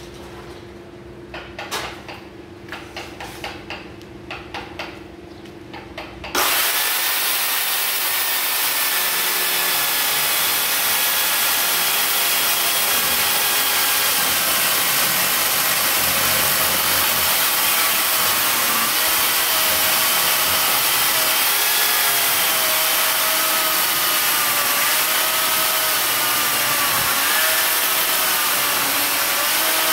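A few light knocks, then about six seconds in a Makita electric chainsaw switches on abruptly and runs on, its chain cutting into a block of wood. The motor's whine dips in pitch now and then as it takes the load of the cut.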